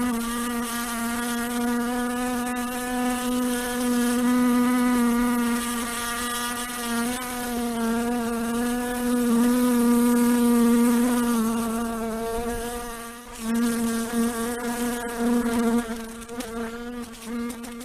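A fly buzzing in flight: a steady wingbeat drone that wavers slightly in pitch. It drops away briefly past the middle, then turns uneven near the end.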